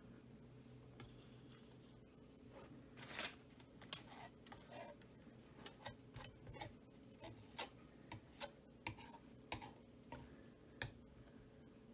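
Small metal palette knife tapping and scraping on a stretched canvas while spreading the white base paint: faint, irregular clicks and taps starting about three seconds in, over a faint steady hum.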